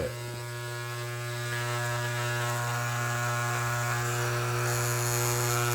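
Electric hair clippers buzzing steadily while trimming down the bristles of a brush weather-seal strip that stands too tall.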